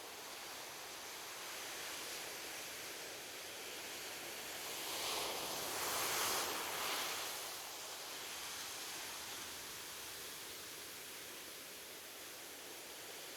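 Ocean surf on a beach: a steady hiss of waves, with one wave breaking and washing in, loudest about halfway through.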